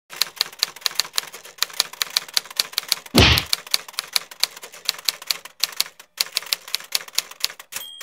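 Typewriter keys clacking in a fast, even run of about five strokes a second, with one heavy thump about three seconds in.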